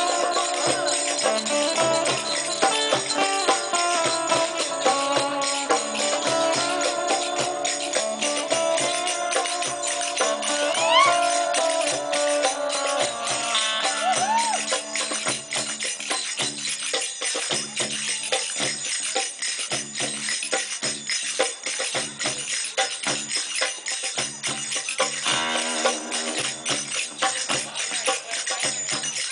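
Live band music with hand percussion and jingling tambourine-like shakes under a melodic instrument line that slides between notes. About halfway through the melody drops away, leaving mainly the percussion. A new melodic line comes in near the end.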